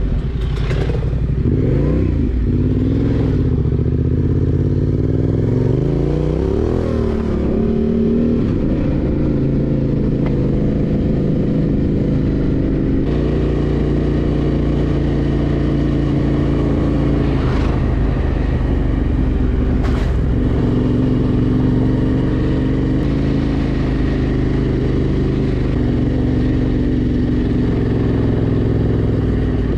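Yamaha Ténéré 700's parallel-twin engine under way on the bike, rising and dipping in pitch through the gears for the first several seconds, then running at a fairly steady pace. A couple of sharp clicks sound past the middle.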